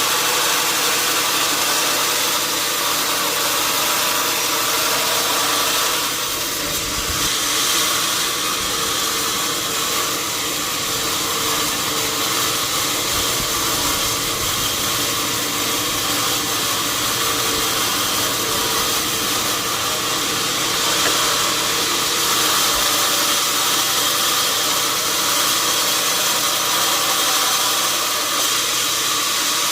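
Sawmill machinery running steadily: a continuous hiss-like mechanical noise over a low motor hum.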